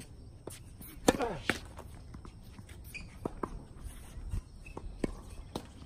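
Scattered sharp knocks of tennis balls and tennis shoes on a hard court, at irregular spacing. The loudest knock comes about a second in, followed at once by a brief voice.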